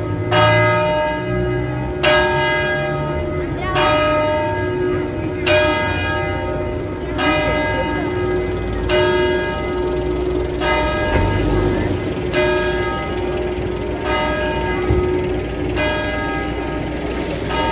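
Church bell ringing at an even pace: one stroke about every 1.7 seconds, each ringing on, over a steady lower hum.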